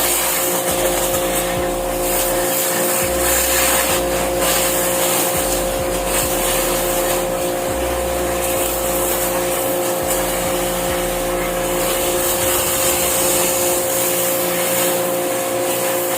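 Electric pressure washer running steadily with a hissing water spray, as used to wash a split air-conditioner.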